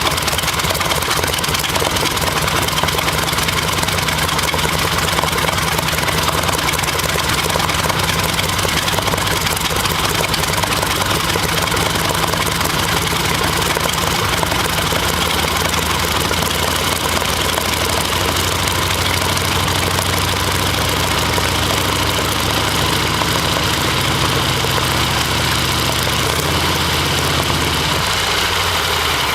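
A large engine running steadily with a fast, even firing beat; its pitch shifts slightly in the last several seconds.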